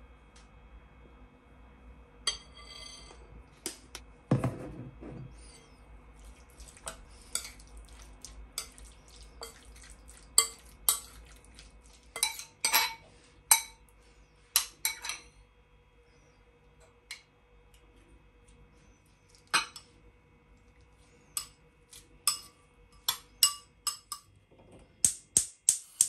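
Kitchen dishes and utensils being handled: an irregular series of sharp clinks and knocks, several ringing briefly, with a dull thump about four seconds in and a quick run of clinks near the end.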